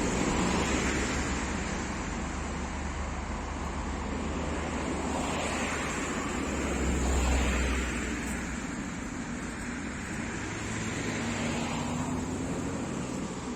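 Steady motor-vehicle road noise: a continuous low rumble under a hiss that slowly swells and fades.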